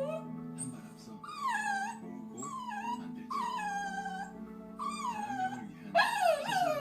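Young Bichon Frise whining: a string of about six high-pitched whimpers, each sliding down in pitch, coming in quick succession and bunching together near the end.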